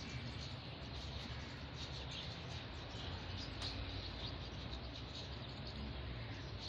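Steady background ambience: a constant low hum with faint, scattered high chirping.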